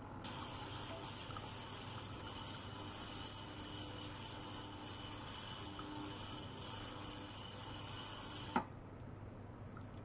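Loud hissing of circulating water in a glass jar while an ultrasonic probe oscillates in it. It switches on suddenly about a quarter second in and cuts off suddenly after about eight and a half seconds, with faint steady tones under the hiss.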